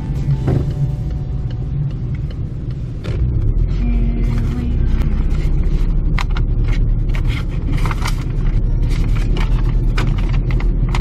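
Car driving on the road, heard from inside the cabin: a steady low rumble of engine and tyres that grows louder about three seconds in, with scattered light knocks and rattles.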